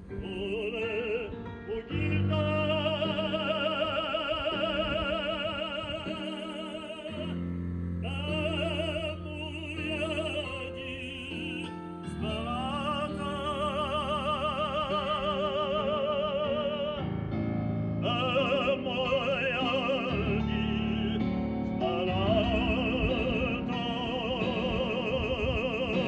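Operatic singing in Italian: a classically trained voice with wide vibrato holds long notes over sustained instrumental chords that change every few seconds.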